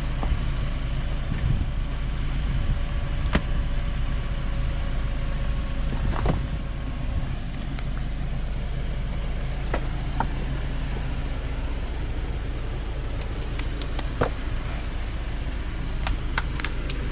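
Jeep Wrangler's engine idling steadily, with a few scattered sharp clicks and knocks over it.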